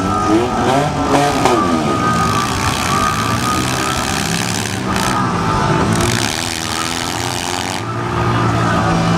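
Several four- and six-cylinder demolition-derby cars revving their engines, the pitch rising and falling as they drive about the arena.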